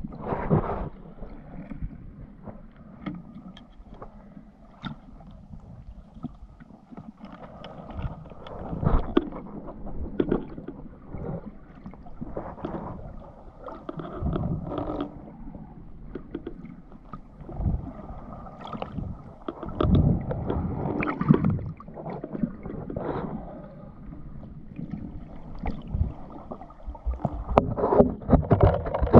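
Water sloshing and gurgling around a swimmer's underwater camera, rising in irregular surges every second or few.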